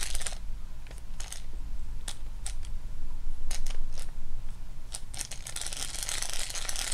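Cheap Chinese baitcasting reel worked by hand, its mechanism giving irregular sharp clicks and ticks. Something inside doesn't sound right: the reel stopped working properly after getting soaked in rain.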